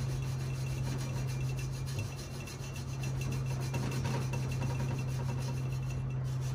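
Scotch-Brite pad rubbed by hand over the aluminum main bearing saddles of a Subaru EJ257 engine block, a steady scratchy scrubbing that eases off briefly about two seconds in. A steady low hum runs underneath.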